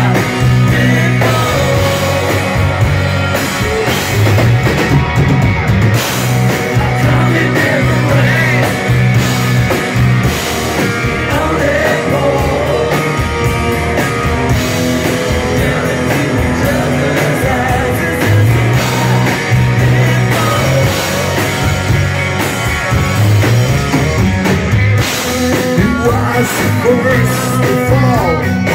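A rock band playing live: electric guitars and drums at full volume, with some singing.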